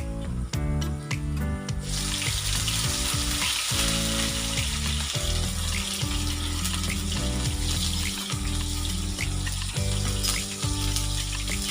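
Food sizzling in hot oil in a frying pan, starting suddenly about two seconds in and carrying on steadily, over background music.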